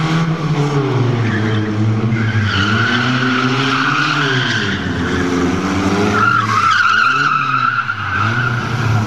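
Rally car engine revving up and down hard as it is thrown through tight turns, its tyres squealing twice for a couple of seconds each, from about two and a half seconds in and again about six seconds in, as the car slides.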